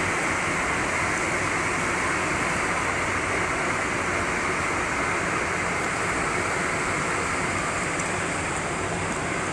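Steady rushing noise of wind and sea aboard a cruise ship under way.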